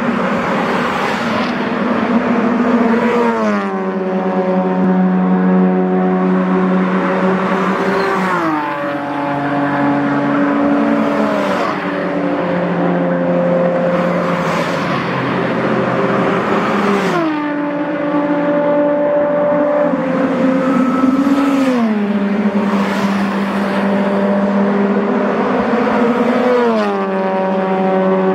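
Racing cars running at speed down a circuit's main straight and passing close by. Their steady engine notes drop in pitch as each goes past, about six times, with a brief rush of air and tyre noise at each pass.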